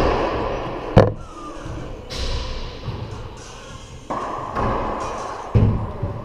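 Racquetball play in an enclosed court: sharp smacks of the ball off racquet and walls that ring on in the court. The loudest comes about a second in, and another near the end.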